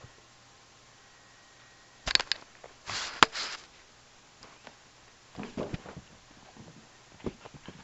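Cats playing around a camera set on the carpet: a burst of sharp knocks and rustling close to the microphone about two seconds in, its loudest a sharp click just after three seconds, then scattered fainter taps and scuffs.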